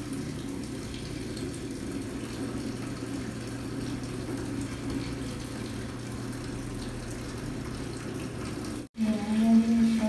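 A Panasonic 8.5 kg top-load washing machine filling: water streams from the top of the tub onto the clothes with a steady rushing splash and a low hum. Near the end the sound cuts out briefly and a person's voice begins.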